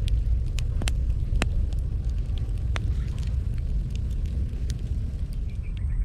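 Wood fire burning with a low steady rumble and sharp, irregular crackling pops.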